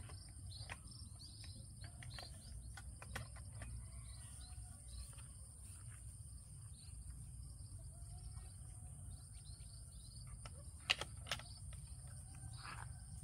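Outdoor field ambience: insects trilling steadily at a high pitch, with scattered small chirps, a low rumble, and light clicks and rustles. Two sharper clicks come about eleven seconds in.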